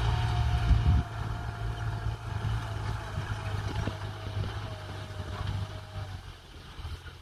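Farm tractor's diesel engine running steadily under load while tilling, heavy low rumble for the first second, then growing fainter as the tractor moves away. A thin steady whine runs beside it and stops about six seconds in.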